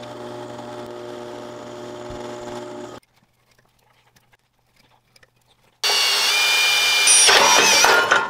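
A drill press motor runs steadily while drilling an aluminium block, stopping about three seconds in. After a quiet gap of a few seconds, a cordless drill bites into the thin wall of a welded aluminium box, much louder, with high ringing tones that waver near the end.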